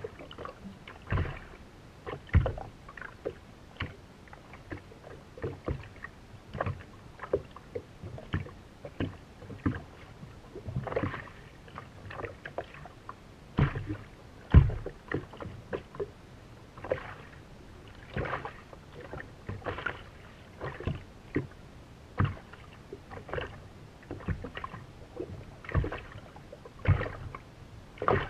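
Small waves slapping against the hull of a race boat lying still in the water: irregular knocks and splashes every second or so, with no steady engine sound.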